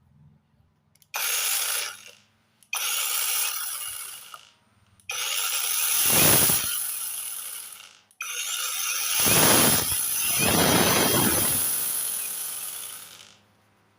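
Cordless angle grinder fitted with a mini chainsaw adaptor running in four separate bursts. Each burst starts suddenly and winds down, and the last two are the longest.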